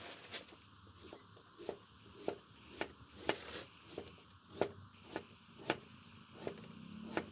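Knife chopping food on a cutting board, in steady strokes about twice a second.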